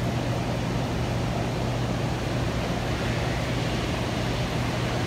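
Refrigerated drink vending machine humming steadily, its compressor and fans giving a constant low hum under an even hiss.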